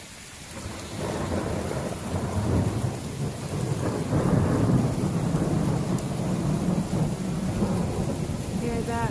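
Thunder rumbling long and low over steady rain, building about a second in, loudest around the middle, then rolling on.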